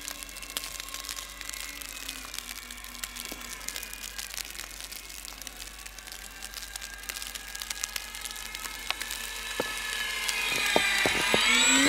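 Twin electric motors and propellers of a radio-controlled Avios Albatross HU-16 model flying boat in flight, a faint whine whose pitch slides up and down and that grows louder near the end as the plane comes in low. Light ticks and crackles are scattered throughout.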